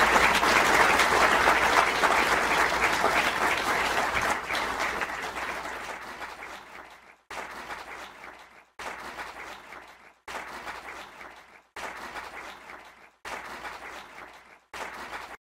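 Lecture audience applauding at the end of a talk: loud for the first few seconds, then dying away. In the second half, short fading snatches of the applause follow about every second and a half, each cutting off abruptly.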